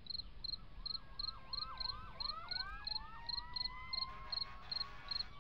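Crickets chirping in a steady rhythm, about three chirps a second, while faint sirens wail and yelp underneath, their pitch rising and falling.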